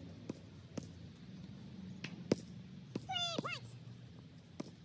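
Faint, scattered thuds of a basketball bouncing on an outdoor court. About three seconds in comes one short call that rises and falls in pitch.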